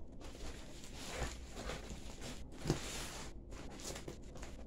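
Cardboard shipping box being handled and shifted on a bed: rustling, scraping cardboard with a single soft thump a little under three seconds in.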